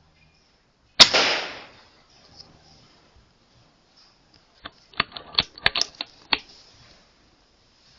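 A single shot from an Air Arms S510 Ultimate Sporter .177 pre-charged air rifle about a second in: a sharp crack with a short hissing tail. About four seconds later comes a quick run of sharp clicks.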